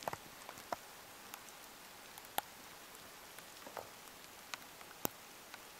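Light rain falling on wet conifer boughs: a steady soft hiss broken by irregular sharp ticks, the loudest two about halfway through and near the end.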